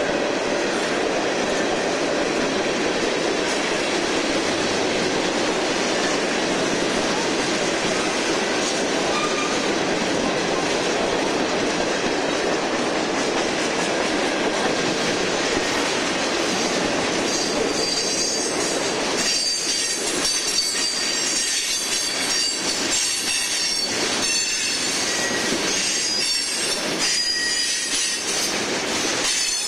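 Freight cars rolling past on a curve: a steady rumble of steel wheels on rail. About two-thirds of the way through, high-pitched wheel squeal and clacking of the wheels set in and continue.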